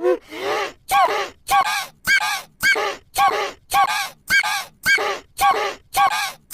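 A short, squawk-like cartoon vocal clip looped about twice a second, roughly a dozen times. Each repeat starts with a sharp click and rises and falls in pitch.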